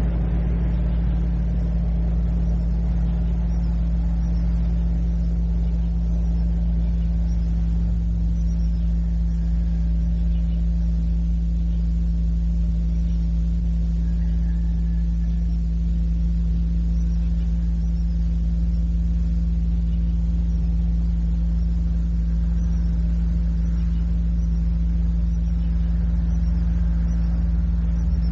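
Steady low hum and rumble on an old cassette recording of ambient noise, even and unchanging throughout, with faint high chirps above it.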